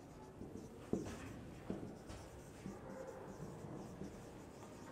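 Marker pen writing on a whiteboard: a run of short, faint strokes and small taps as the letters are written.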